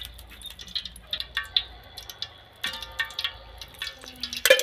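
Liquid splashing and dripping as a ladle is moved through it in an aluminium pot, with scattered small clicks and a louder clatter near the end.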